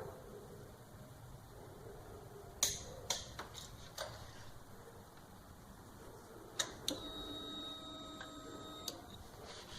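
Fuel pump of a 2004 Honda CBR600RR priming between starting attempts: a few clicks, then a faint steady whine for about two seconds that stops sharply.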